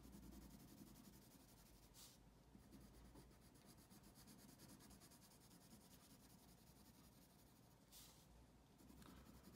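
Faint scratching of a colored pencil shading on paper, in short back-and-forth strokes.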